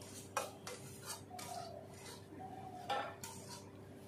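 Metal spatula scraping and clinking against a wok as fried greens are stirred, several separate strokes in the first three seconds or so. The dish is done frying and is being turned before it is served.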